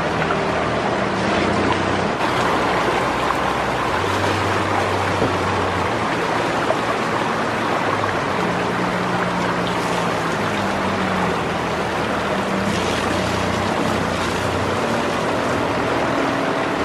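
Shallow river rushing steadily over rocks and a small weir, a constant wash of white water.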